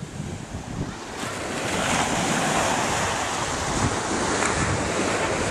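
Ocean surf breaking on the beach, a wash of waves that swells about a second in and keeps going, with wind buffeting the microphone.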